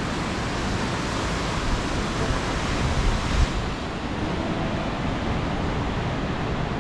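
Ocean surf washing steadily, with wind buffeting the microphone and a louder gust about three and a half seconds in.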